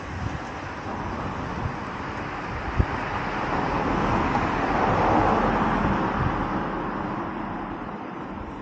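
A car passing close by on a road, its tyre and engine noise swelling to a peak about halfway through and then fading away.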